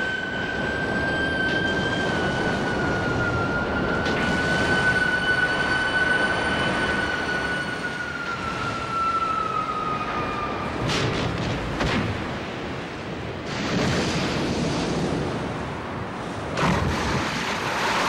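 Animated-film sound effects of an underground upheaval: a steady rumble of breaking rock under a high whining tone that slowly falls in pitch and cuts off about eleven seconds in. After that comes a series of heavy crashing surges.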